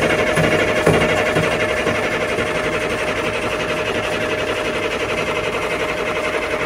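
A Cummins 6CTA 8.3-litre six-cylinder marine diesel idling with a fast, even clatter. A steady tone hums alongside it.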